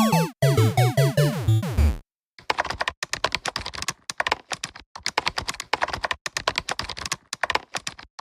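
About two seconds of a stepped, falling electronic tone effect, then a run of fast, irregular sharp clicks like rapid typing.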